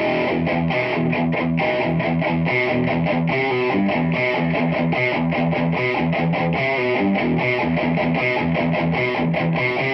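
Distorted electric guitar played through a Peavey 6505+ tube combo amp, a fast riff of short, choppy repeated low notes.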